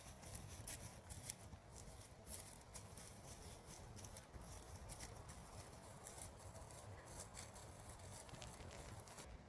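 Faint, irregular small clicks and rustles, several a second at uneven spacing, over a low steady rumble.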